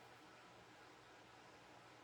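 Near silence: a faint, steady hiss of room tone.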